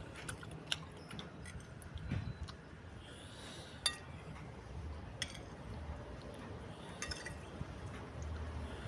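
Spoon and fork clinking against a bowl of meatball noodle soup while eating: a few scattered sharp clinks, the loudest about four seconds in.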